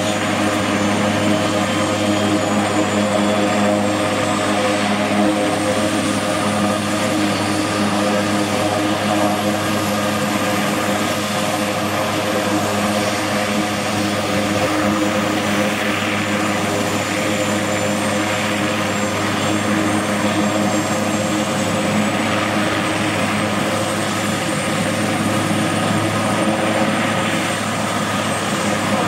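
Eurocopter AS332L1 Super Puma helicopter running on the ground with its rotors turning: the steady whine of its twin Turbomeca Makila turboshaft engines over the rotor noise, with a high whine rising slowly.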